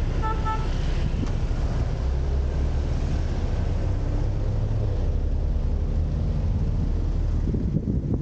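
Steady low rumble of a moving vehicle with a hiss of wind or road noise above it. A short double beep sounds just after the start.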